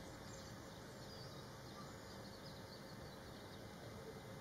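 Faint, steady outdoor background noise with a few faint, high bird chirps.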